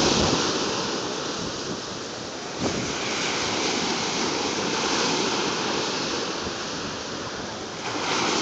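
Small ocean waves breaking and washing up the beach: a steady rush of surf that swells about three seconds in and again near the end.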